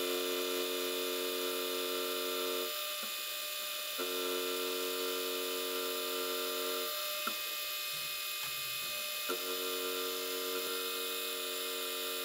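Milling machine running a fly cutter through aluminium: a steady motor hum and hiss, with a pitched drone that drops out and comes back in three times as the cut goes on. Two light ticks come in the gap between the second and third stretches.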